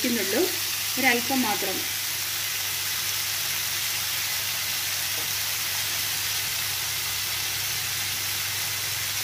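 Diced potatoes frying in a nonstick pan, a steady sizzle.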